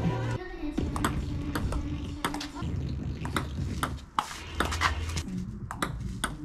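Table tennis rally: the ball ticking off the table and the bats in a quick, uneven string of sharp clicks.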